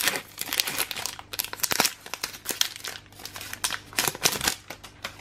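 Foil wrapper of a Pokémon trading-card booster pack being torn open and crinkled by hand, a run of irregular crackling rustles that eases off near the end as the cards come out.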